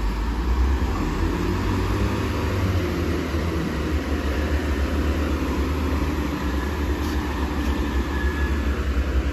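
Chiltern Railways Class 165 diesel multiple unit's underfloor diesel engine running with a steady low rumble as the train pulls away from the platform. The rumble grows a little louder about three seconds in.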